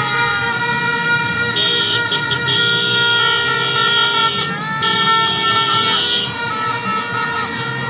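Several vehicle horns honking together, overlapping steady tones with some bending in pitch. Two long held blasts start about a second and a half in and just before the five-second mark.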